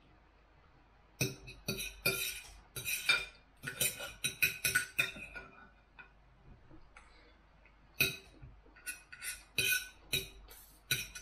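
Knife and fork clinking and scraping against a plate while cutting up food. There is a run of sharp strokes from about a second in, a lull in the middle, and another run near the end.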